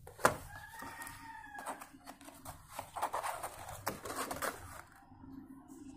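A sharp knock, then a rooster crowing once in the background for about a second. After that come rustling and clicking as cardboard snack boxes are handled and opened.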